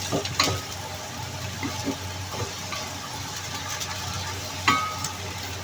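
Kale cooking in a pan on the stove: a low, steady hiss and hum, with a sharp metal clink about half a second in and another near the end.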